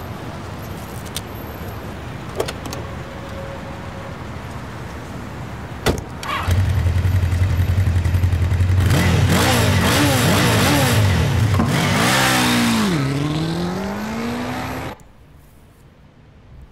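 Steady outdoor background noise, then a sharp click about six seconds in. A car engine then starts and runs loud, its pitch rising and falling as it revs and pulls away. The sound cuts off abruptly near the end.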